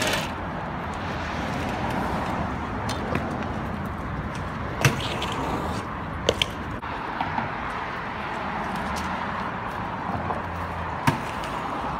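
BMX bikes on a concrete sidewalk: a steady rush of street noise and rolling tyres, broken by a few sharp knocks from the bikes hitting the concrete, the loudest about five seconds in and again near the end.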